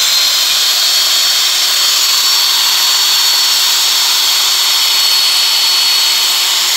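Hitachi 100 V, 700 W corded electric drill with a 13 mm chuck running unloaded at full speed, a steady high motor whine over loud whirring.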